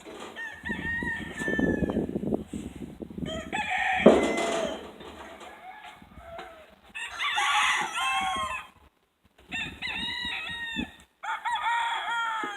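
Roosters crowing again and again, about four crows in turn, among the flock. A sharp knock sounds about four seconds in.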